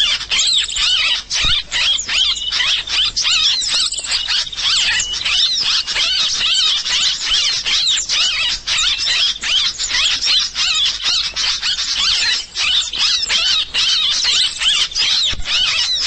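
Bird-lure recording (suara pikat): a dense, unbroken mass of high, rapid bird chirps and squeaky calls, many overlapping, played to draw wild birds in to a trap.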